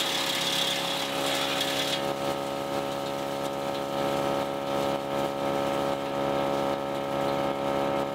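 Tractor engine running steadily, driving a PTO wood chipper. A rushing noise over the engine stops about two seconds in, leaving an even engine tone.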